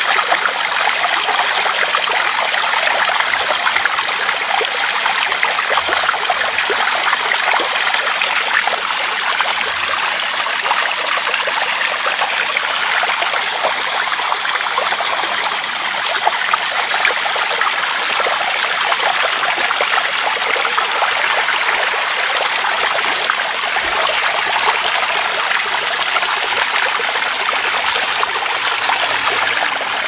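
Flowing stream water, running steadily and evenly throughout.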